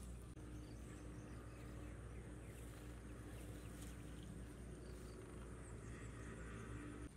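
Faint frog and insect sounds from a flooded rice paddy: a steady high insect trill with scattered soft ticks over a low steady hum.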